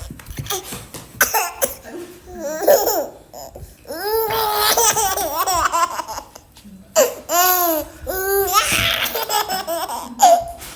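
A baby laughing hard in several high-pitched bursts with short pauses between.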